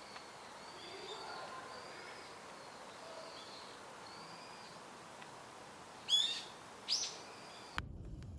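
Wild birds calling outdoors over a faint background hiss: a string of short, high chirps repeating under a second apart, then two louder, sharp falling calls about six and seven seconds in. Just before the end the sound cuts abruptly to a low rumbling noise.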